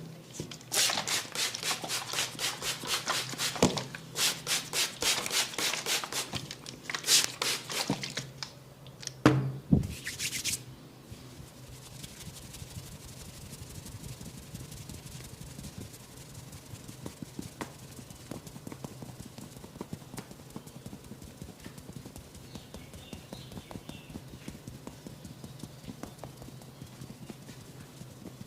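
Rapid percussive massage strikes on the head and neck, several a second, in runs over the first eight seconds, with a few louder slaps around nine to ten seconds in. After that come quieter rubbing sounds with light ticks.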